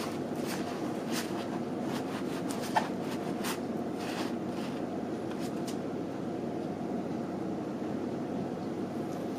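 Nylon down-jacket fabric rustling and crinkling in short strokes as it is flexed and rubbed by hand, mostly in the first half, over a steady low hum.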